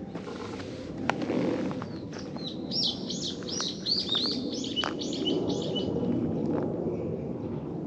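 A bird singing a quick series of repeated high, arching chirps, about three a second, for a few seconds in the middle, over steady outdoor background noise. A sharp click comes about a second in.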